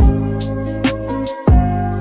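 Background music with a steady beat: deep drum hits at the start and about a second and a half in, a sharper hit between them, over held bass and chord notes.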